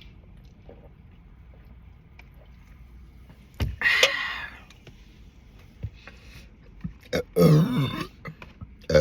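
A sharp click about three and a half seconds in, followed by a short hissing noise; then, about seven seconds in, a loud burp lasting under a second, with a few small clicks around it.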